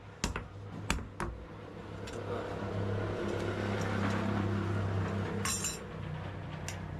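Three hammer blows on hot steel, then a steady low machine hum that builds up and holds, with a short metallic rattle near the end.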